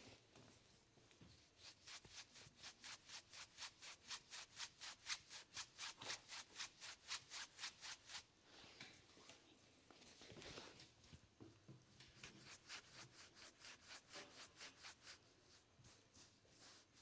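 Hands rubbing briskly over the skin of a bare foot during a massage: fast, even strokes several times a second, then a pause with one longer swish, then a second run of quick strokes.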